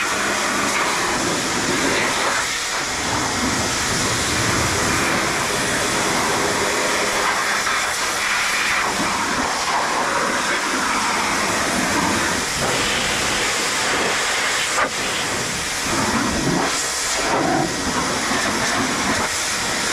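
Craftsman 1900 pressure washer spraying a steady jet of water onto a car's engine bay, an unbroken hiss of spray rinsing the engine and its covers.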